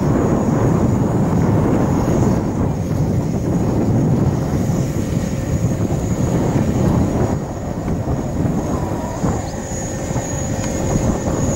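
Wind buffeting an outdoor microphone: a steady low rumbling rush with no distinct events, easing slightly near the end. A faint steady high-pitched tone sits above it.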